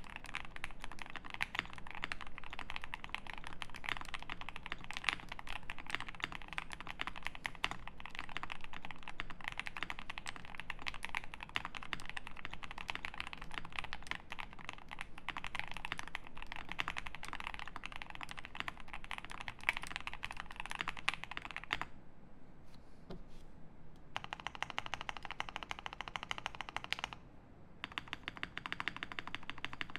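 Jelly Epoch 75% mechanical keyboard with lubed Alpaca V2 linear switches on a polycarbonate plate and GMK Hyperfuse keycaps, typed on fast and steadily. About two-thirds of the way in the typing thins out for a couple of seconds, then comes back in fast bursts with short pauses.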